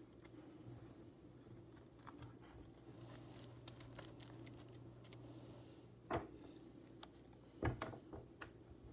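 Sleeved trading cards being shuffled and set down on a tabletop: a scatter of light clicks, then two louder knocks about six and seven and a half seconds in, over a low steady hum.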